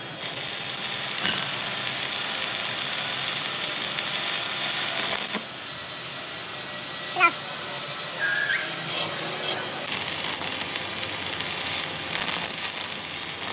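Loud steady hissing that cuts off suddenly about five seconds in and starts again near ten seconds, with a few brief squeaks in the quieter gap.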